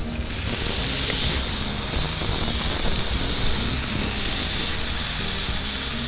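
Cobia fillets sizzling steadily on a hot, oiled electric grill pan, the hiss starting just as they go down, over background music.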